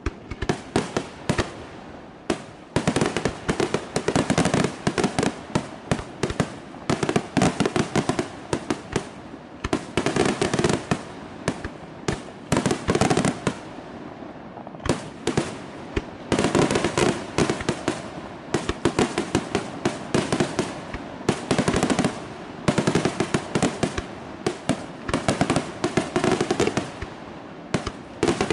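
Aerial fireworks display: a rapid, nearly unbroken string of shell bursts and bangs, many a second, easing briefly about fourteen seconds in before picking up again.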